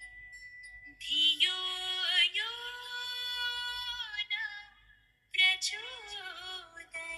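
Music with a woman singing a melody in long held notes. It starts about a second in, breaks off briefly near the five-second mark, then resumes.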